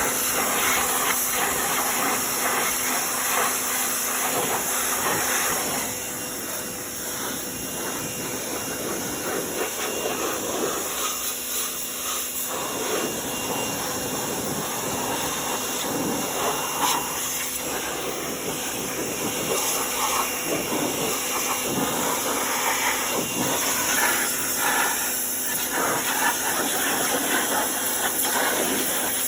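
Pressure washer spraying a high-pressure water jet onto a riding mower: a steady loud hiss that swells and dips as the spray moves over different surfaces, with a steady hum from the washer running underneath.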